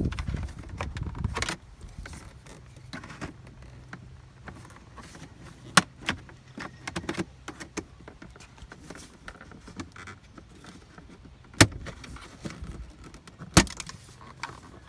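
Plastic car dashboard trim panel being pried off with a plastic trim tool: rubbing and small clicks of plastic, with three sharp snaps, one midway and two near the end, as the panel's clip tabs pop loose.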